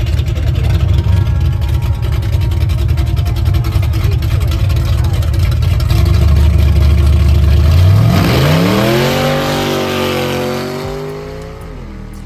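Racing car engine running with a loud low rumble, then revving hard about eight seconds in, its pitch climbing steeply and holding high before dropping and fading near the end as the car pulls away.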